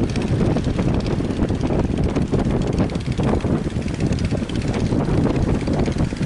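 Strong wind buffeting the microphone in a loud, fluttering rumble over the steady wash of surf on the beach.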